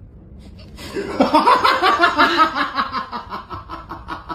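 A person laughing hard: a long run of quick, rhythmic ha-ha bursts that starts about a second in and slowly tails off.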